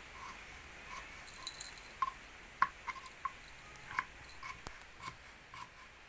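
Small knife cutting young green papaya into thin strips against a wooden board: a series of short, sharp taps, roughly two a second and unevenly spaced.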